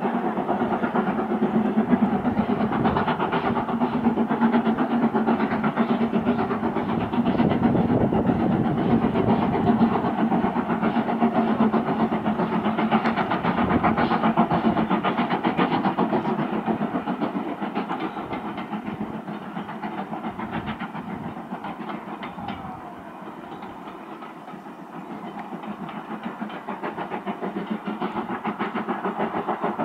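Steam locomotive hauling a train of coaches, its exhaust chuffing in rapid beats. The sound grows fainter after the middle, then louder again near the end.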